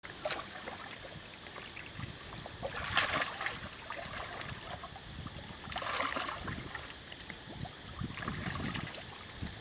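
Water splashing and sloshing as a troop of macaques swims and scuffles in a pool, with louder splashes about three and six seconds in.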